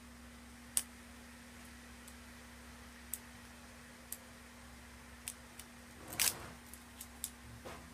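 Scattered small clicks and taps with a brief scraping rustle about six seconds in: a surprise egg's packaging being handled and opened by hand.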